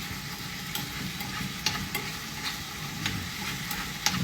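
Food sizzling in a hot pan on a stovetop, a steady frying hiss with irregular sharp clicks of a utensil stirring against the pan.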